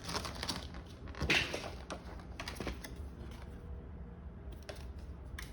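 Cardboard boxes and foil booster packs being handled on a table: scattered light clicks, taps and rustles, with a louder rustle about a second in.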